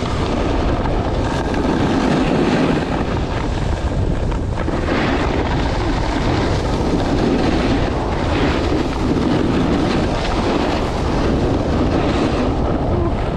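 Snowboard sliding and carving down groomed snow, the board scraping continuously, with wind rumbling on the microphone.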